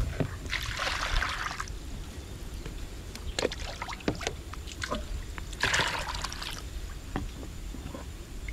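Water poured into plastic bowls in two short splashing bursts, with light knocks and clicks from handling the plastic bowls between them.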